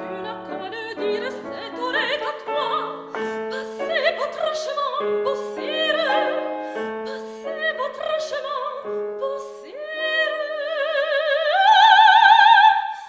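Soprano singing operatic style with vibrato over piano accompaniment, climbing near the end to a long, high held note.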